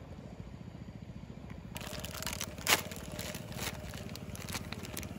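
Crunching and crackling handling noise with several sharp cracks, starting about two seconds in, the loudest a moment later, over a steady low rumble.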